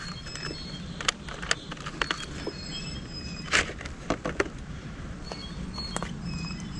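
Sharp plastic clicks and knocks of a RadRunner e-bike's frame battery being unlocked with its key and pulled out of its mount, the loudest knock about three and a half seconds in, over a steady low hum.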